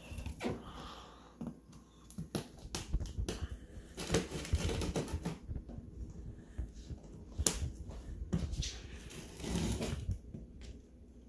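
A knife cutting through the plastic wrap and tape on a large cardboard box, with irregular clicks, scrapes and crinkling as the box and wrap are handled.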